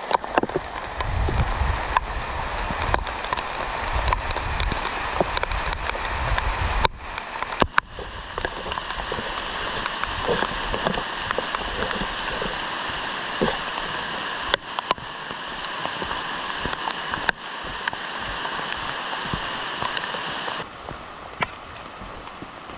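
Steady rushing water noise, rain or running water, with scattered clicks and knocks. A low rumble fills the first several seconds, and the sound changes abruptly about seven seconds in and again near the end.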